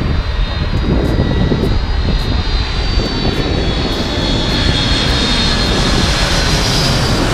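Jet airliner on low final approach: steady jet engine rumble with a high whine that drifts slightly lower in pitch.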